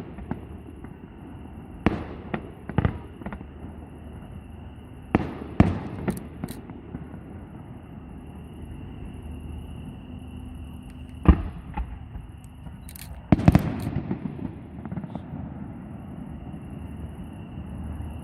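Fireworks bursting in irregular clusters of sharp bangs: a few in the first three seconds, a quick group around five to six seconds, a lone loud one near eleven seconds, and a heavy volley about thirteen seconds in, each trailing off in a short rumbling echo.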